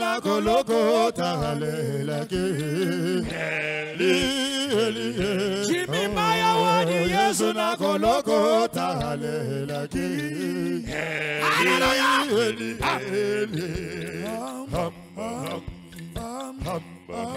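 A group of men singing a worship song together, voices wavering with strong vibrato, over sharp percussive beats.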